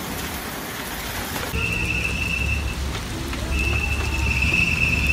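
Heavy hail and rain falling, an even dense hiss. About a second and a half in, the sound changes to a lower rumbling downpour. Over it a steady high-pitched tone sounds twice, first for about a second, then for about two seconds.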